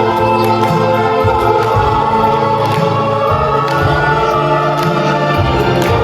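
A choir singing a musical number over instrumental accompaniment, with a moving bass line and light percussion hits.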